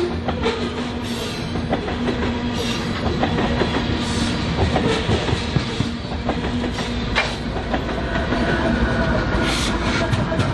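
BNSF grain train's covered hopper cars rolling past, steel wheels clicking over the rail joints over a steady rumble.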